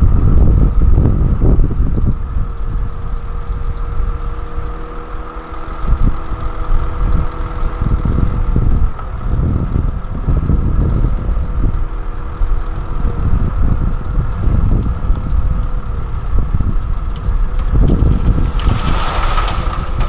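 Hyundai Trago dump truck's diesel engine running as the hydraulic hoist raises the loaded tipper body, with a steady whine over gusting wind on the microphone. Near the end the load of soil starts sliding out of the bed with a loud rushing sound.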